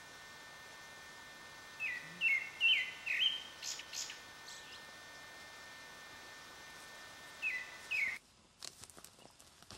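Wild birds calling: four short, downward-sliding chirps in quick succession about two seconds in, a few higher sharp notes, then two more chirps near the end, over a steady hiss. After about eight seconds the hiss drops out and a run of short clicks follows.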